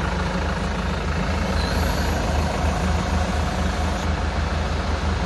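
A 100 hp tractor's diesel engine running steadily, powering the hydraulics of a tractor-mounted post driver, with a faint high whine for a couple of seconds in the middle.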